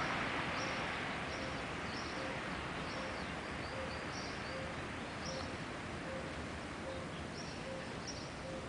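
Small birds chirping in short, high calls every half second or so over a steady background hum of city noise, with a faint low note repeating at an even pace.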